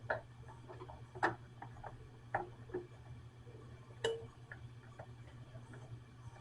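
Scattered light clicks and taps of small drain parts being handled and screwed together while a sink's pop-up stopper pivot rod is fitted to the drain tailpiece, over a steady low hum. The sharpest clicks come about a second in and about four seconds in.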